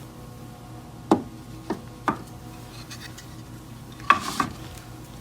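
Sharpening stones being handled and set down on a hard surface: a few light clicks, then a sharper knock with a brief scrape about four seconds in.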